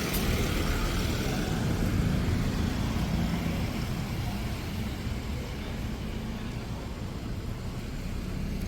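Steady street traffic noise: the hum of passing cars and other vehicles, easing slightly partway through.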